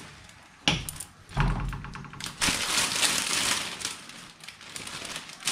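Plastic bag crinkling and fresh spinach leaves rustling as the leaves are tipped into a frying pan, with a sharp click under a second in.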